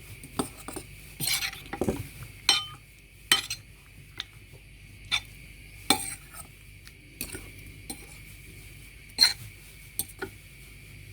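Utensil stirring in a bowl, mixing fish pieces into a yogurt-and-spice marinade: irregular clinks and knocks against the bowl, with soft scraping between them.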